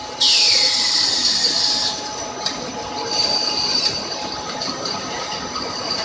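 Aluminium rod breakdown wire drawing machine running, its spooler winding drawn wire onto a reel, with a steady high metallic whine. A loud hiss comes in sharply just after the start and stops suddenly about two seconds in.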